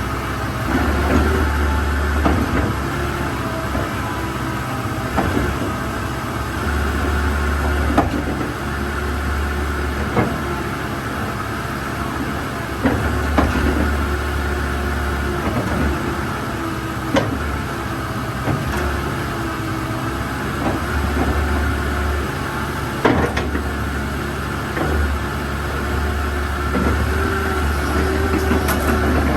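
Komatsu PC120-8 excavator's diesel engine running steadily, with a tone that wanders up and down in pitch over it. Sharp clanks come every few seconds.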